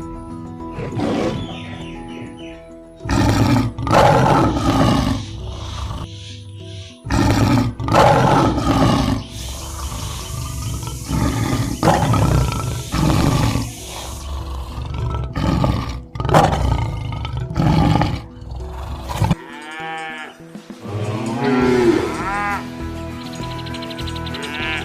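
A big cat roaring repeatedly, several loud calls of one to two seconds each, over steady background music; near the end a different, pitched, wavering animal call.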